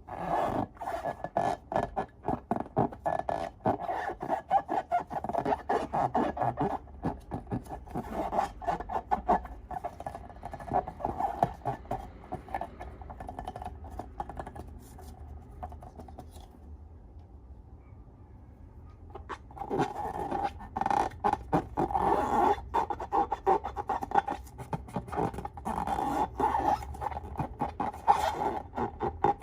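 Slime being worked and mixed, with rapid sticky clicks, crackles and scraping. The sound thins out for several seconds around the middle, then picks up again.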